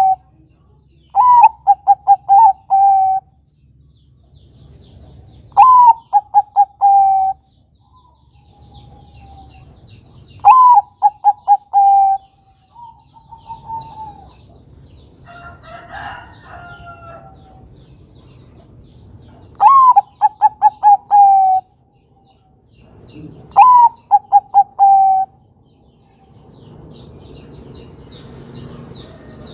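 Zebra dove (Bangkok-type perkutut) cooing. Five loud phrases come several seconds apart, each a high opening note followed by a quick run of short, even coos. Faint chirps of small birds can be heard between the phrases.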